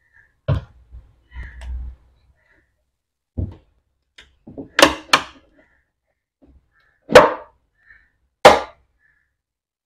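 Sharp plastic knocks and clicks, about seven scattered strokes with a dull thud early on and the two loudest knocks near the end, as a BMW headlight is handled and pressed shut while its lens is seated and sealed.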